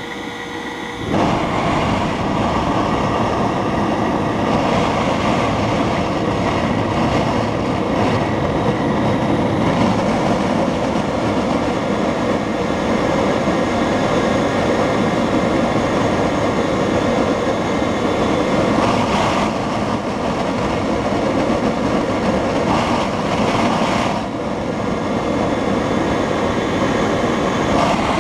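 Electric jet engine's centrifugal compressor, driven by a 5.3 kW brushless motor: a quieter whine that jumps about a second in to a loud, steady rush of air as the compressor is spun up, then holds with small dips.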